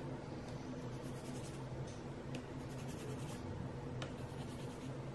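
A white coloured pencil scratching across paper in short runs of quick strokes, over a steady low hum.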